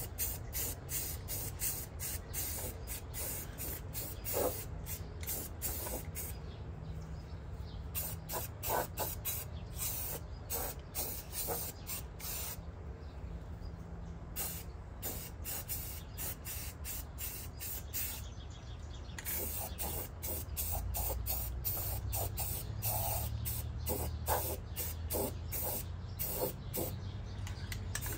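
Steady hiss with scattered faint clicks and knocks from hand tools working on a pickup's torsion bar suspension, fitting a torsion bar key.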